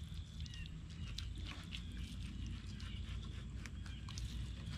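A knife cutting along a striped bass's backbone through the rib bones, giving many small irregular clicks, over a steady low rumble and faint high chirps.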